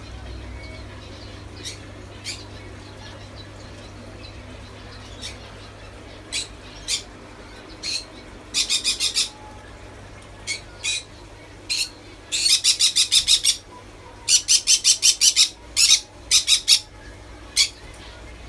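Caged songbirds chirping: scattered sharp high chirps and several fast trills of rapidly repeated notes, the longest lasting over a second, coming in clusters through the middle and later part.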